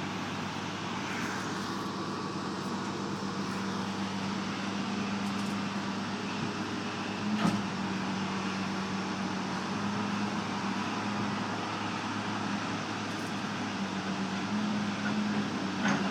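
John Deere backhoe's diesel engine running steadily, with a sharp knock about seven and a half seconds in and another near the end.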